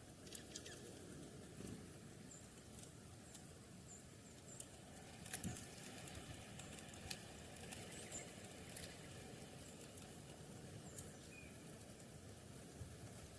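Faint outdoor ambience with small birds giving short, high chirps now and then, and scattered light ticks and taps, most of them in the middle of the stretch.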